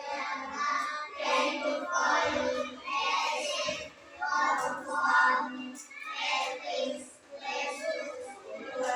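A class of young children singing a prayer together in unison, in phrases with short breaks between them.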